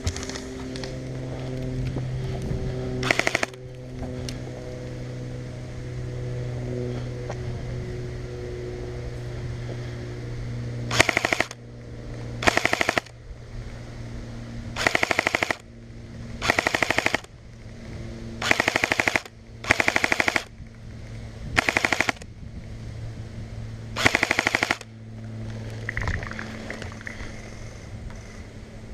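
Airsoft electric rifle firing short full-auto bursts of rapid shots: one burst about three seconds in, then eight more, each under a second long, in quick succession over the latter half.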